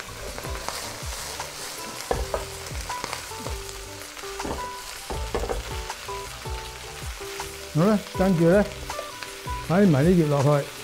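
Bok choy stalks sizzling in hot oil in a non-stick wok, with the slotted metal spatula scraping and clacking against the pan as they are stir-fried.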